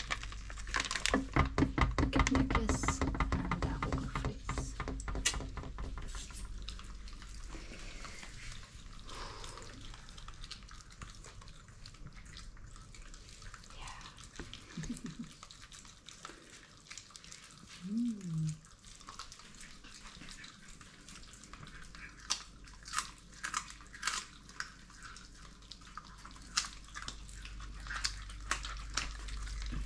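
A plastic bag of raw chicken necks crinkling as it is handled, then two Shiba Inus chewing raw salmon, with repeated sharp crunches and clicks in the second half. Two brief low voice-like sounds come midway.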